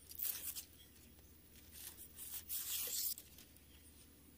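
Bolo knife scraping along coconut leaflets, stripping the leaf blade off the midribs to make tingting for a broom: a short scraping stroke at the start and a longer, louder one about two seconds in.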